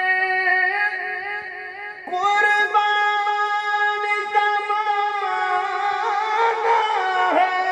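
A man's voice singing a naat unaccompanied through a microphone, holding long sustained notes with wavering, ornamented turns. The sound dips briefly and a new held note starts about two seconds in.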